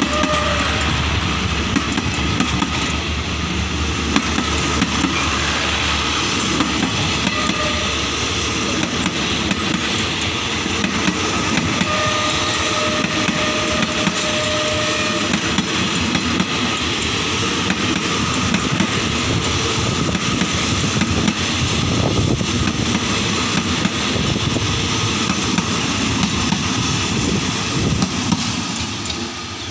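Passenger coaches of a passing train rolling by close at hand: a steady rumble with the clatter of wheels over the rail joints and a squealing tone now and then. The sound drops away near the end as the last coach goes by.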